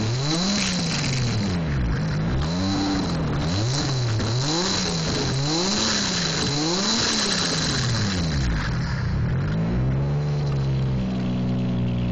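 Toyota 2JZ-GTE twin-turbo straight-six in a 1984 Mazda RX-7, revved up and down about six times in a row, then settling to a steady idle near the end.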